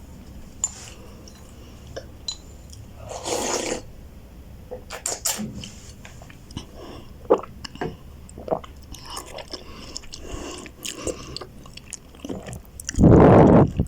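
A person chewing and eating ramen noodles close to the microphone: wet mouth clicks and chewing noises, with a louder, longer noisy burst near the end.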